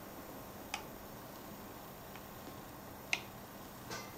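Three faint, sharp clicks spaced a second or more apart, the loudest a little after three seconds in, as the small rubber screw-cover pads are picked off a laptop's screen bezel.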